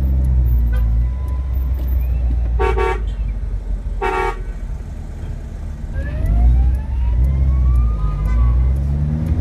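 Car engine and road rumble heard from inside a car's cabin in traffic. Two short car-horn toots about a second and a half apart, near three and four seconds in. Then a car engine revs up with rising pitch as traffic moves off.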